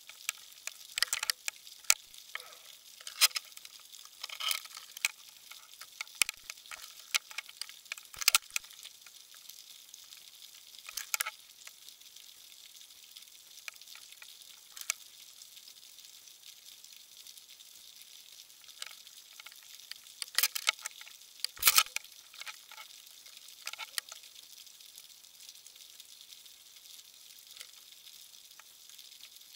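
Underwater crackling: irregular clusters of sharp clicks over a faint steady hiss, heavier in bursts near the start and again past the middle.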